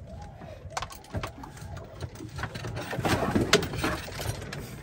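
Fishing reel being cranked, a fast mechanical whirring, with scattered knocks and clicks of gear on the boat.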